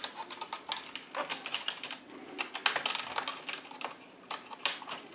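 Irregular light clicks and taps from projector parts being handled and set down, the strongest twice near the middle and end.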